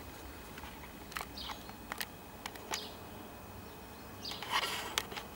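Faint scattered clicks and ticks over low room noise, with a short rustle about four and a half seconds in.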